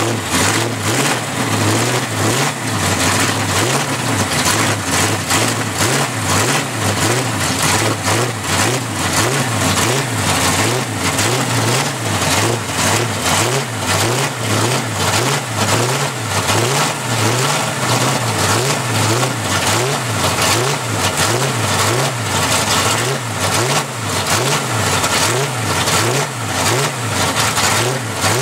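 Chevy 4x4 mud race truck's engine running while warming up, its note swelling and dipping in a steady, even rhythm.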